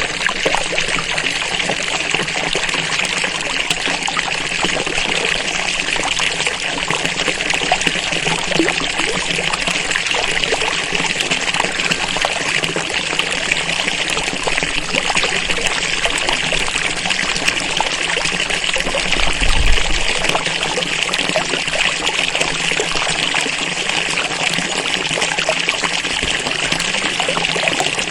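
Water falling and splashing in a steady, even trickling stream, as from a fountain or small waterfall. A brief low bump sounds about two-thirds of the way through.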